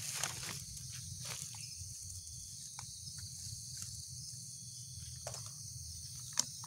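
A steady high insect chorus, with intermittent rustling and light knocks as rice in paper wrappers and plastic bags is handled. A sharp click comes near the end.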